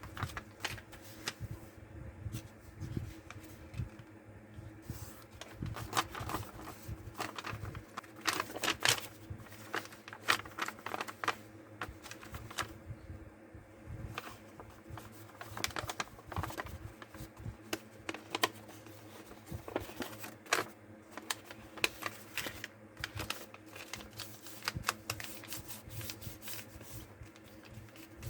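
A sheet of origami paper being folded and creased by hand: irregular crackles and rustles, over a steady low hum.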